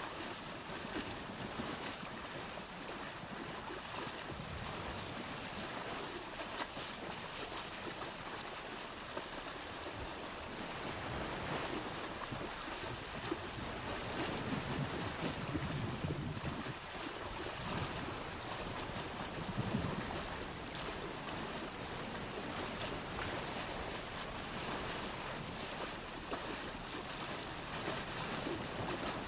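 Steady rushing outdoor noise, like wind on the microphone, with some louder low rumbling about halfway through.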